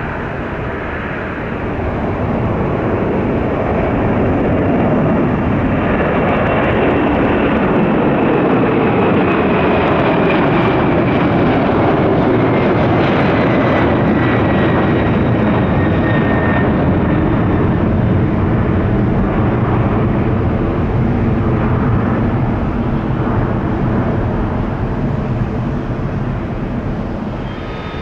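Twin turbofan engines of a Delta Boeing 767 at takeoff thrust. The noise swells over the first few seconds and holds as the jet rolls and climbs out past. An engine whine slides down in pitch as it goes by, and the noise fades toward the end.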